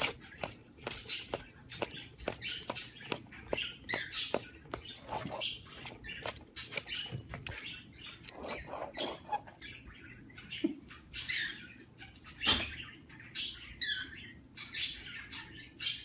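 Sun conure giving a long, irregular series of short, high chirps and squeaks, some sliding down in pitch, with faint clicks in between.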